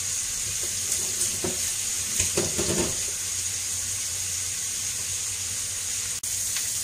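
Sliced white onions sizzling in oil in a frying pan, a steady hiss, with a few light clicks and knocks in the first three seconds.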